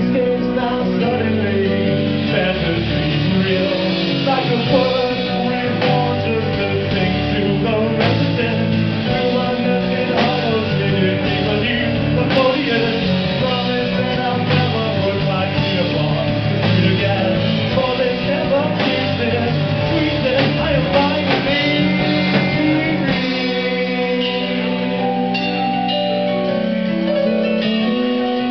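Live band playing on electric guitars with drums. Near the end the deepest bass drops away.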